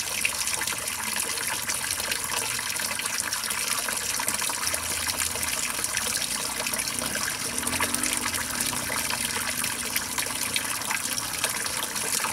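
Water streaming down the sides of a tub and splashing steadily onto a stone floor.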